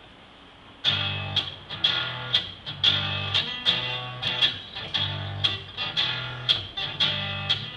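Acoustic guitar playing a blues accompaniment, coming in about a second in: a steady rhythm of strummed chords over a repeating bass line, about two strokes a second.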